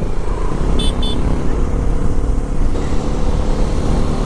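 Motorcycle engine running while riding, a steady low rumble whose note settles into an even hum after about a second and a half. Two quick high-pitched beeps sound about a second in.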